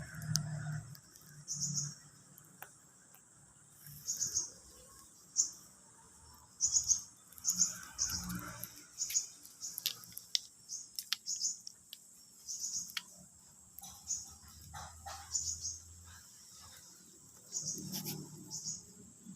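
Short, high-pitched chirps repeating at irregular intervals, with a faint steady high hiss underneath and a few sharp clicks and soft low thumps.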